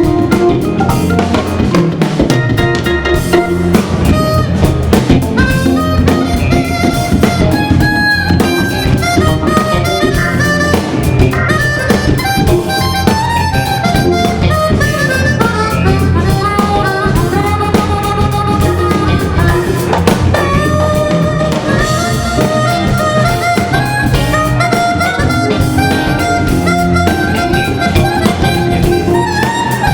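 Live blues-soul band music: Hammond organ lead lines with sustained reedy tones over a drum kit groove.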